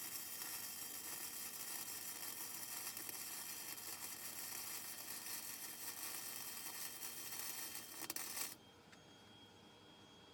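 Welding arc crackling and hissing steadily while a bead is run, cutting off abruptly about eight and a half seconds in. Faint room tone with a thin high whine follows.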